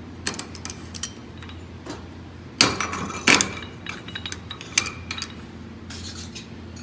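Steel transfer case parts clinking as the clutch hub and gears are slid and seated onto the splined mainshaft: a series of sharp metal clinks, the loudest about two and a half and three and a half seconds in.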